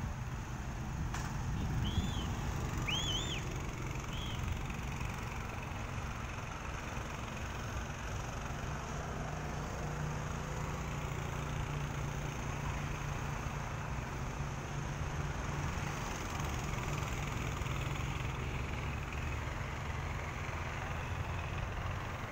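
Small vehicle engine running steadily while driving along a dirt track, a low rumble with rough ground noise. A few short high chirps sound about two to four seconds in.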